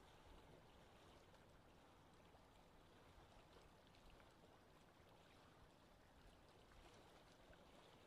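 Faint lakeside wind ambience: a steady, even hiss of wind with soft water sounds and small ticks scattered through it.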